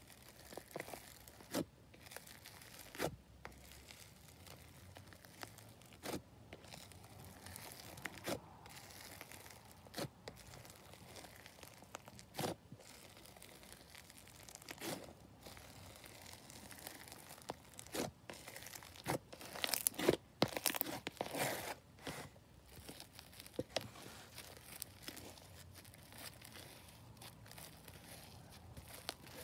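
Blue foam-bead slime (floam) being pressed, poked and squeezed by hand in a plastic tub: sticky crackles and crunchy pops from the beads, scattered every second or two, with a denser, louder run of crackling about two-thirds of the way through.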